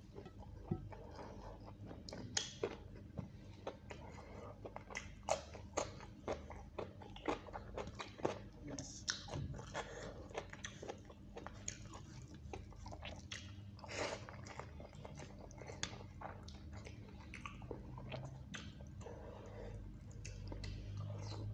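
Close-miked eating by hand: wet chewing, mouth clicks and lip smacks as soft rice and chicken curry are eaten, with fingers mixing rice and gravy on a steel plate. The clicks come irregularly, several a second at their thickest.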